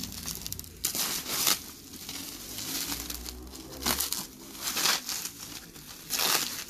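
Plastic bubble wrap crinkling and rustling as it is pulled open and crumpled by hand, in a series of short swishes with the loudest about a second and a half, four, five and six and a half seconds in.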